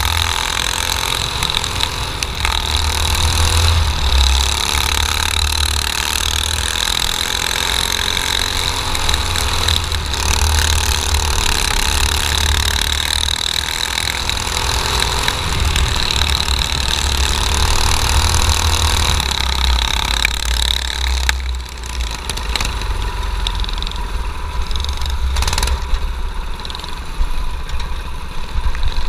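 Dirt kart engine running hard, heard from onboard the kart at racing speed. About twenty seconds in the engine eases off and the sound drops and turns rougher as the kart slows.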